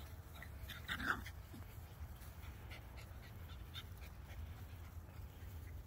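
A dog gives one short yelp about a second in, over a steady low rumble.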